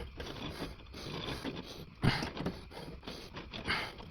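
Irregular scrapes, knocks and clicks of a rubber tire being worked onto a bandsaw wheel as the wheel is turned by hand, with one sharper knock about two seconds in.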